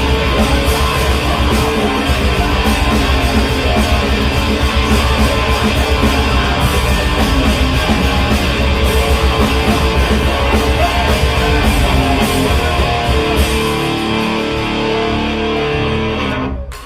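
Live rock band playing loud, guitar-driven music with a fast beat. The beat drops out about three quarters of the way through, leaving held chords, and the song stops suddenly near the end.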